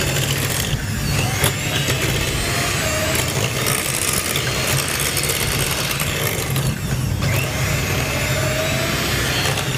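Electric hand mixer running steadily, its beaters whisking cake batter in a glass bowl.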